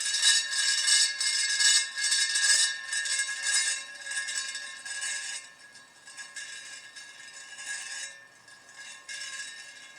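Rebuilt spoked motorcycle wheel spinning on its axle while a dial gauge's tip rides on the steel rim during a radial runout check: a steady metallic scraping hiss with a ringing tone. It is loudest in the first half, fades, and picks up again near the end.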